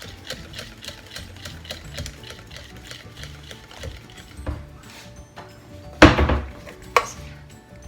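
Background music with an even ticking beat, then a loud knock about six seconds in, with a short clatter after it, and a smaller knock a second later.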